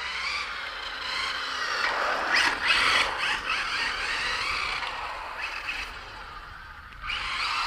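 ZD Racing 08426 1/8-scale electric RC drift car driven hard on asphalt: a high-pitched squeal from its motor and tyres that rises and falls with throttle and braking. It is loudest about two to three seconds in and dips briefly near the end.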